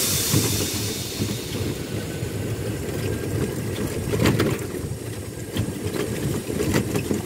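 Golf buggy riding along a sandy path, heard from the seat: a steady low rumble of the moving cart, with a few short rattles a little past halfway.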